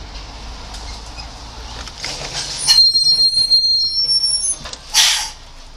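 Road noise inside a moving car, then about two and a half seconds in a clatter as a small three-wheeled cargo vehicle crashes into the roadside trees and overturns, followed by a high-pitched brake squeal of under two seconds. A short loud hiss comes near the end.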